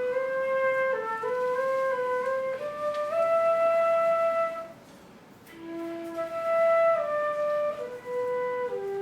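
Flute playing a slow melody of sustained notes that step up and down, with a brief pause about five seconds in.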